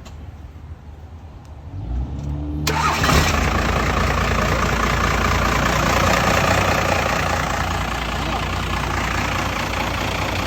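Pickup truck engine cranking for under a second and firing on the first try after sitting unstarted for months, then running steadily.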